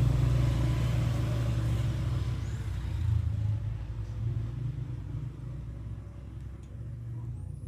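Motor vehicle engine running steadily with a low rumble that fades gradually over several seconds. A few faint, short, high chirps are heard above it.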